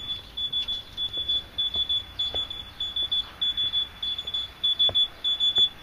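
Smoke alarm beeping continuously: rapid high-pitched beeps in short quick groups, close to two groups a second.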